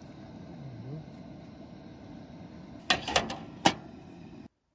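Metal camp plates clanking together as the top plate is lifted off and set back over a stack of pancakes: a few sharp clanks about three seconds in, over a steady low rushing, cut off abruptly just before the end.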